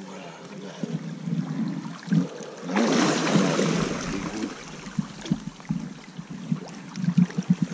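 Water splashing in a shallow river as a king salmon thrashes in a landing net, with one loud burst of splashing about three seconds in. Short low knocks follow near the end.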